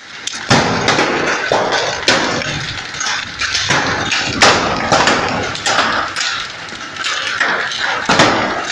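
Hail falling hard: a loud, dense clatter of many small hard impacts, some stronger hits standing out.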